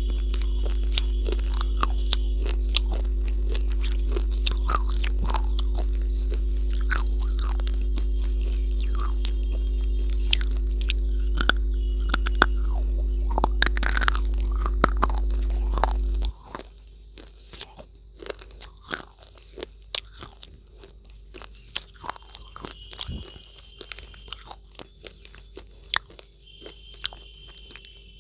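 Close-miked crunching and chewing of a hard white chalk-like block in the mouth, with many sharp irregular crunches. A steady low hum lies under the first half and cuts off suddenly about 16 seconds in.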